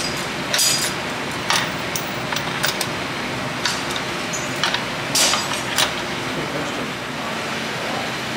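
About seven sharp clinks, spread over the first six seconds, above a steady background hum.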